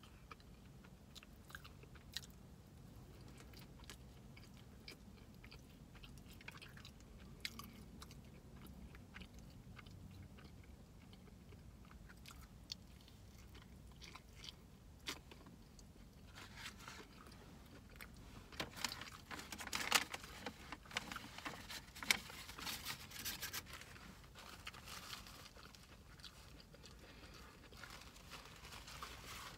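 A person chewing and biting into a sandwich, with soft, scattered mouth clicks that grow busier a little past the middle.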